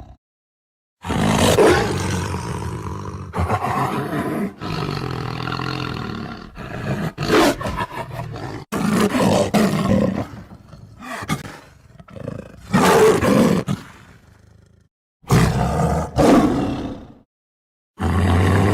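A string of tiger roars and growls, one after another, with short dead silences between some of them where separate recordings are cut together.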